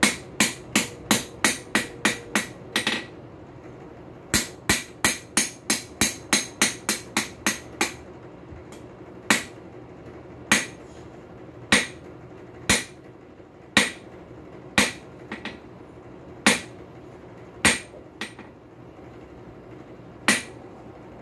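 A two-pound ball-peen hammer strikes hot high-carbon steel on an anvil, drawing out the taper of a square punch. There is a quick run of about eight blows, a short pause, a faster run of about a dozen, then single blows about once a second.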